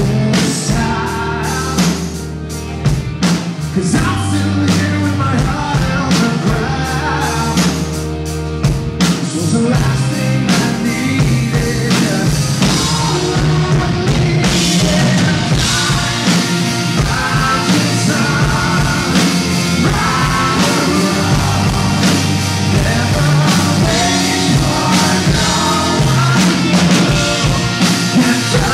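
Live rock band playing a song: electric guitars, bass guitar and drum kit, with a voice singing over them at times.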